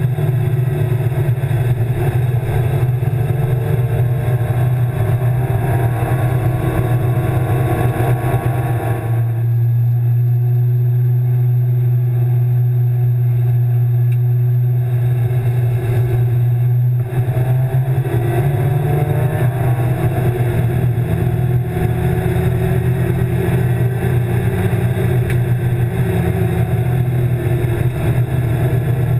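A BMW E36 325's M50 inline-six engine running hard, heard from inside the stripped race car's cabin, with the revs climbing through the gears. In the middle it holds a steady, lower-load drone at constant revs, then pulls up through the revs again.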